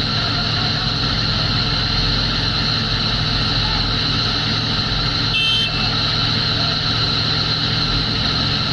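Diesel engines of Tata Hitachi hydraulic excavators running steadily while their booms hold a load, with a steady high whine over the low engine sound. A short beep sounds about five and a half seconds in.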